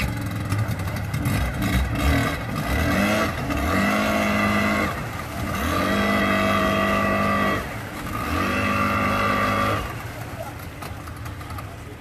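Outboard motor on a wooden canoe revving up three times, each held for a couple of seconds before dropping back, then settling to a lower idle near the end, while the propeller churns the water.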